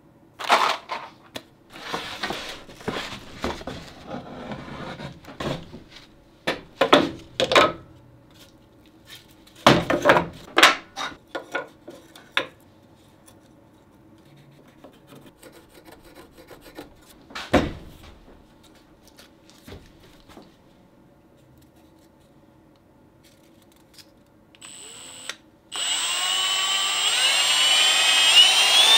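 Wooden pieces being handled, with scattered knocks and clatter. About 26 s in, a cordless drill starts and runs loudly with a wavering whine, boring into a small plywood piece for dowel joints.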